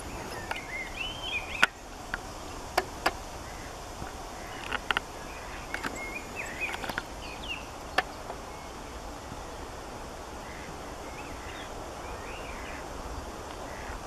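Outdoor ambience with small birds chirping now and then, and a handful of sharp clicks in the first eight seconds, the loudest about one and a half seconds in and another at about eight seconds.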